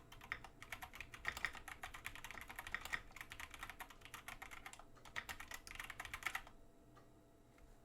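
Typing on a GMMK Pro mechanical keyboard with stock (unlubed) Tecsee Golden metal-coated linear switches, FR4 plate and PBT alpha keycaps: a fast, irregular run of key clacks that stops about a second before the end.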